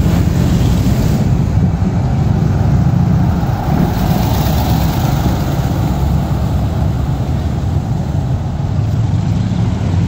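Low engine rumble of passing vehicles. A Harley-Davidson cruiser motorcycle rides by, then a lifted old four-wheel-drive truck on big off-road tyres drives past, loudest about halfway through.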